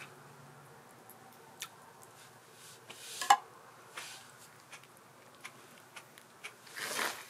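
Scattered light clicks of cutlery against a plate, with one louder ringing clink about three seconds in and a soft rustle near the end.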